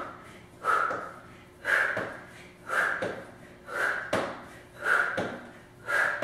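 A woman's sharp, forceful exhalations, about one a second in a steady rhythm, each breath pushed out with the effort of a plank knee-crunch rep.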